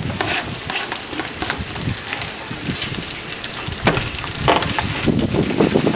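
Metal tongs tossing sliced onions and red bell peppers in a disposable aluminium foil pan: irregular scraping, clicking and crinkling of the foil with the rustle of the vegetables, busier in the last couple of seconds.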